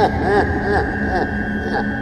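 Spooky evil laugh sound effect: a run of rising-and-falling 'ha' syllables, about two a second, loudest at the start and fading, over a steady droning music bed.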